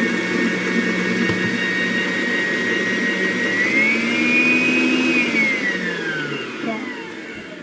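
Electric kitchen mixer motor running with a steady whine while briefly mixing mascarpone, egg yolks and whipped cream; its pitch rises a little about three and a half seconds in, then falls and fades as the mixer is switched off and spins down.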